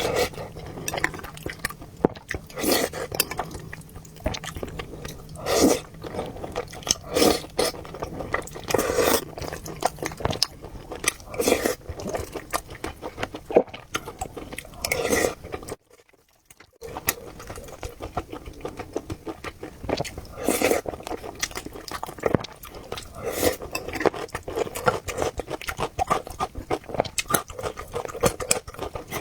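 Close-miked eating: irregular chewing and biting of braised pork knuckle and rice in broth, broken by a brief silence a little over halfway through.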